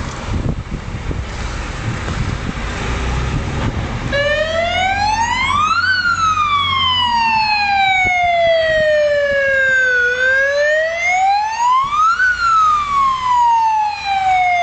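A fire engine's engine rumbles. About four seconds in, its siren switches on with a slow wail. The wail climbs for about two seconds and sinks for about four, repeating twice.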